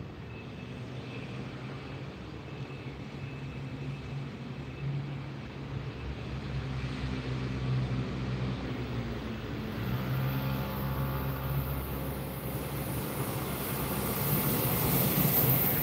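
Approaching Taiwan Railway passenger train: a low rumble and hum that grows steadily louder as it nears.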